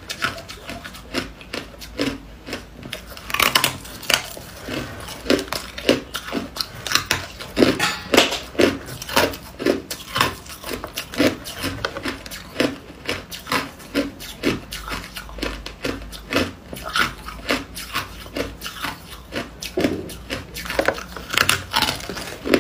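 A block of hard frozen ice bitten and crunched between the teeth: a continuous run of sharp cracks and crunches, several a second.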